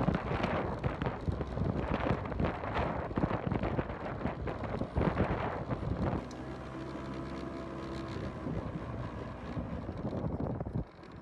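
Wind buffeting the microphone of a small motorbike on the move, over the engine's hum. About six seconds in the wind eases as the bike slows and the engine's steady drone comes through clearly, then it all goes quieter near the end.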